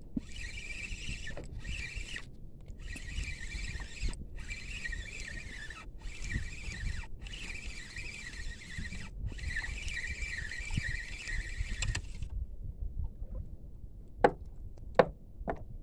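Spinning reel being cranked to wind a hooked fish up from the bottom, its gears whirring in runs of one to two seconds with brief pauses between turns. The whirring stops about 12 seconds in, and three sharp knocks follow near the end.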